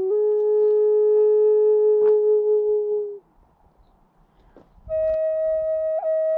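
End-blown flute played solo: one long held low note, a break of about a second and a half, then a higher held note with two quick flicks up near the end.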